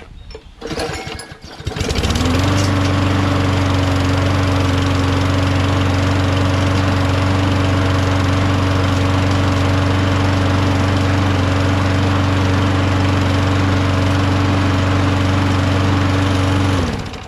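Briggs & Stratton Quantum single-cylinder four-stroke engine on a Craftsman 21-inch push mower starts about two seconds in, comes up to speed and runs steadily for about fifteen seconds, then shuts off near the end; it runs well.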